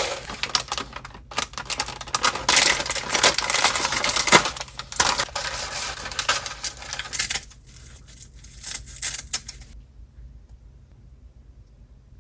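Kitchen food-preparation noises: quick clicks, clatter and rustling, busiest in the middle, then stopping about ten seconds in.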